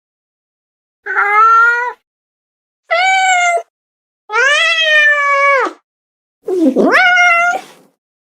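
Domestic cat meowing four times, with short silences between. The third meow is the longest and rises then falls; the last starts with a rough, low dip in pitch.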